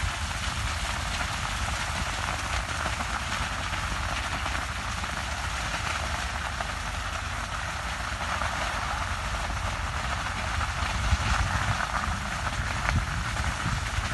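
Burning sugarcane field crackling: a steady, dense crackle that sounds much like rain.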